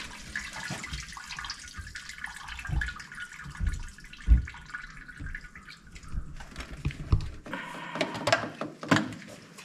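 Water running steadily, like a tap, with a few dull knocks. Near the end it turns louder and rougher for a second or two.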